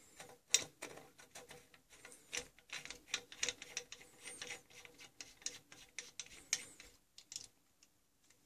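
A hand turning the metal cap on the underside of a brass water pressure regulator: a run of small, irregular clicks and scrapes of metal on metal that stops about 7.5 seconds in.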